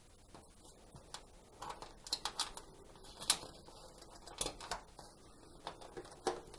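Sheet-metal heater cover being pressed into place on the back panel of a tumble dryer: a scattering of light metallic taps and clicks, the sharpest about three seconds in.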